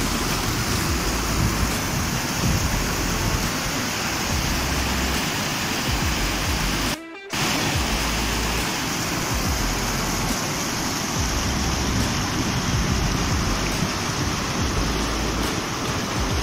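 River rapids rushing over boulders: a steady sound of white water. It cuts out for a moment about seven seconds in.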